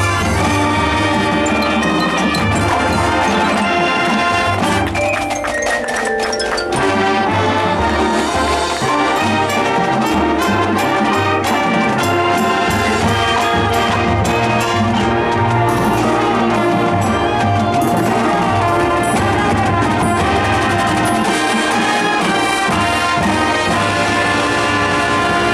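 Marching band playing its field show: brass with drums and a front ensemble of mallet percussion, with a falling slide in the brass about five seconds in.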